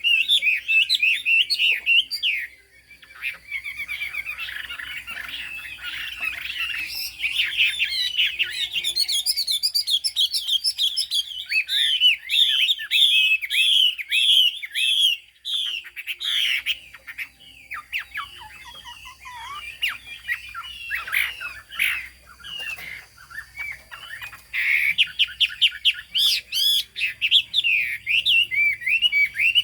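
Chinese hwamei (họa mi) singing a loud, varied song of rapid slurred whistled notes and fast trills, broken by brief pauses.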